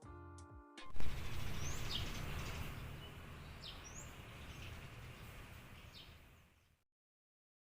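Music stops just under a second in. A sharp click follows, then steady outdoor background noise with a low hum and several short bird chirps. It fades out to silence near the end.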